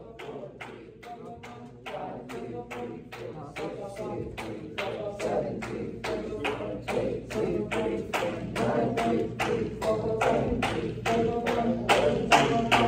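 A steady fast beat of sharp clicks, about three a second, with singing voices underneath, growing louder toward the end.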